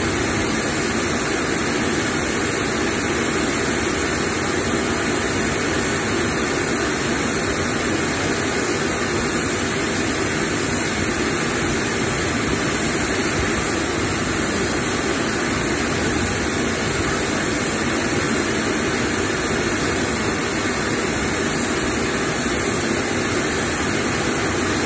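Aircraft jet turbine running steadily, a constant noise with a thin high whine over it.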